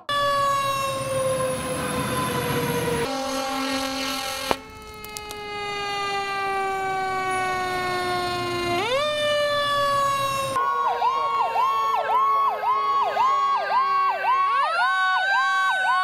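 Fire truck sirens. A wailing siren slides slowly down in pitch, jumps back up, then pulses rapidly at about three dips a second before rising again near the end.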